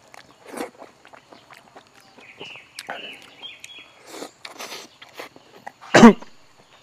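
Close-miked chewing and mouth noises from a man eating soft eggplant and other stir-fried food: wet smacks and small clicks. Near the end comes a short, loud vocal sound from the eater.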